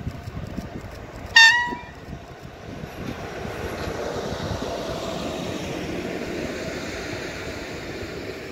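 An electric locomotive gives one short, loud horn toot about a second and a half in. It then runs past with steady wheel-on-rail rumble that swells as it draws level.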